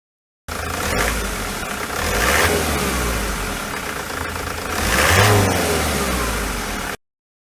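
Ford Transit 2.4 TDDi Duratorq diesel engine running and revved up twice, about two and five seconds in, each time falling back. The engine has a misfire at idle and under light load. The sound starts and stops abruptly at edit cuts.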